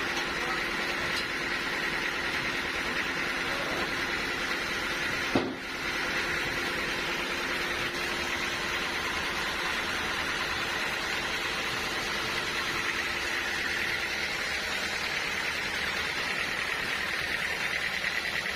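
Sawmill machinery running steadily, with a short sharp click about five seconds in.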